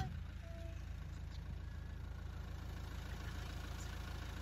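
Game-drive vehicle's engine idling with a steady low rumble.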